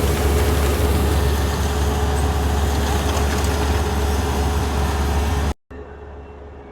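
Kubota rice combine harvester running at close range: a loud, steady machine noise with a deep hum and a steady mid-pitched whine. It starts and stops abruptly, cutting off about five and a half seconds in, with quieter running machinery after.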